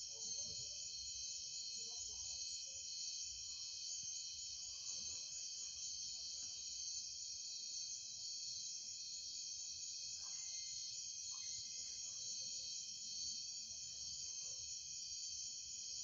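Steady, high-pitched chorus of night insects, several pitches layered together without a break.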